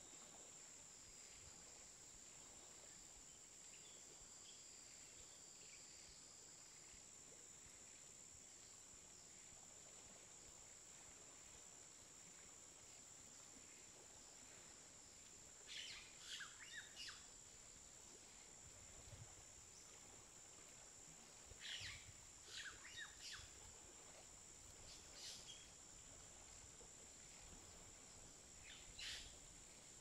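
Quiet outdoor ambience: a steady, high-pitched insect trill throughout, with four short clusters of chirps about halfway through and near the end.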